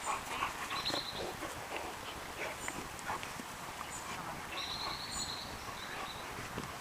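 Dogs playing and wrestling on grass: a string of short, scattered scuffling and dog vocal sounds.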